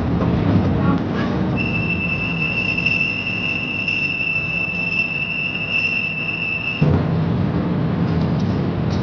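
Small open-carriage cave train running along its track with a steady rumble and rattle. From about a second and a half in, a steady high-pitched squeal rides on top for about five seconds, then stops suddenly as the rumble grows louder.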